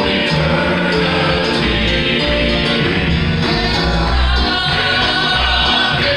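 Southern gospel male vocal group singing in close harmony through the stage sound system, over live piano and band with a heavy bass line.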